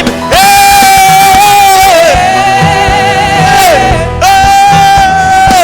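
Live gospel worship singing by a church choir, with instrumental accompaniment: the voices hold three long notes in a row, each for about a second and a half or more.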